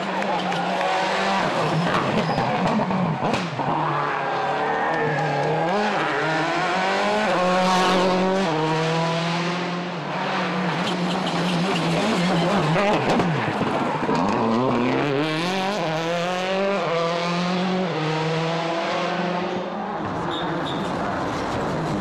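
World Rally Car's turbocharged four-cylinder engine running hard on a stage, its pitch climbing and dropping again and again as it revs up and shifts through the gears.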